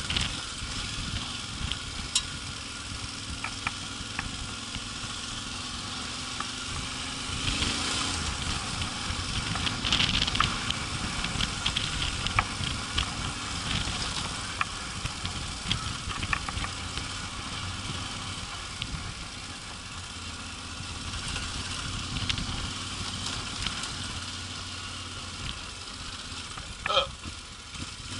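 Yamaha Ténéré 700's parallel-twin engine running at a steady low speed on a loose gravel track, under a continuous hiss of tyre and wind noise, with scattered sharp clicks and rattles. A short squeak sounds near the end.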